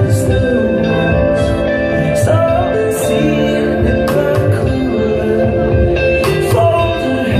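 Rock band playing live: electric guitars over bass and drums, with repeated cymbal hits.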